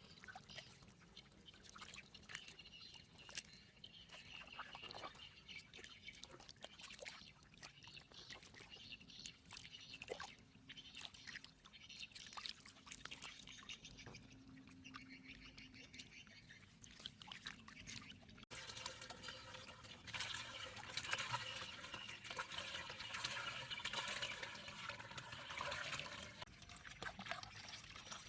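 Flowing water trickling and splashing, with many small drips and splashes; about two-thirds of the way in it changes abruptly to a fuller, steadier rush of water.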